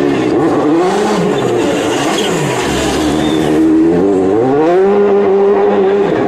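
Car engine revving hard: its pitch swings down and up, then climbs steeply about four seconds in and holds high.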